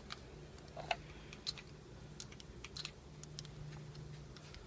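Scattered light clicks and ticks of 16-gauge stainless steel articulated glove plates shifting as the fingers flex, over a faint steady low hum.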